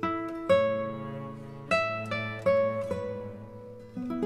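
Background music: acoustic guitar playing plucked chords, each ringing out and fading before the next.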